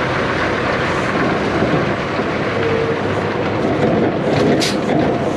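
Strong wind buffeting the microphone as a steady, loud rushing rumble, with a brief sharp hiss about four and a half seconds in.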